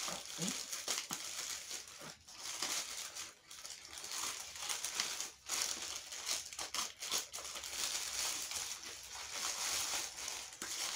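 Thin plastic mailer bag crinkling and crackling as it is cut open with scissors and pulled apart by hand, in an irregular, uneven run of rustles.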